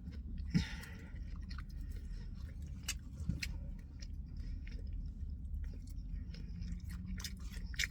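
A person chewing a mouthful of a steak burrito bowl close to the microphone, with scattered small wet mouth clicks and smacks.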